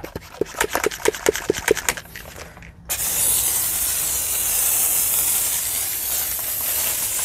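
Hand pump foam sprayer being pumped, about four quick strokes a second, then from about three seconds in a steady hiss as it sprays foaming non-acid wheel cleaner onto the wheel.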